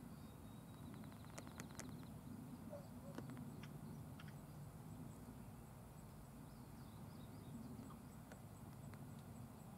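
Near silence: faint outdoor background with a steady low rumble and a few soft clicks in the first few seconds.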